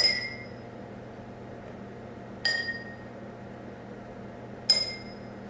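Three clear metallic chime strikes, about two and a half seconds apart, each ringing briefly and fading, over a faint steady low hum.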